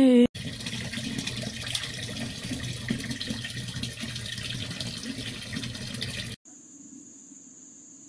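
Water running in a steady stream from a tap into a sink basin, cutting off abruptly about six seconds in; a faint steady high whine and low hum follow.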